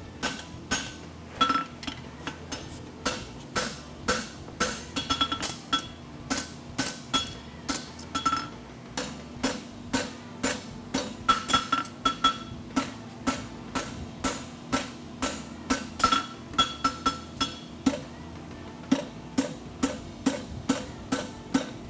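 Hand hammer striking red-hot steel on an anvil in a steady rhythm of about two to three blows a second, each blow with a short metallic ring: forging horseshoe stock.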